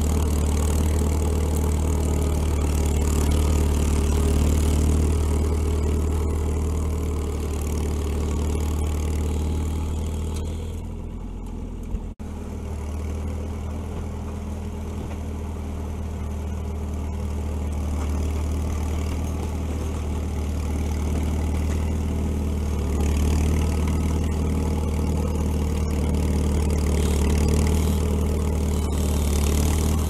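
Engine of an IH TD-6 crawler dozer running steadily. It dips briefly about eleven seconds in, with a sharp click just after, then carries on.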